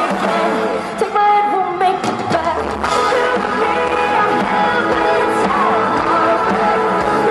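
Live rock band playing through a festival PA: a female lead singer sings over electric guitars and drums.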